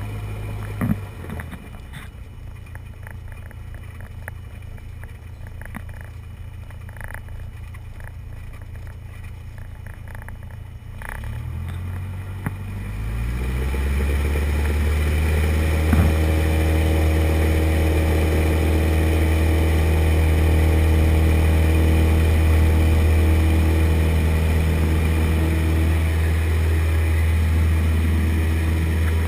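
Light single-engine airplane's piston engine heard inside the cabin: running low and quiet for about the first eleven seconds, then rising quickly in pitch and loudness to full power and holding a steady, loud note for the takeoff roll.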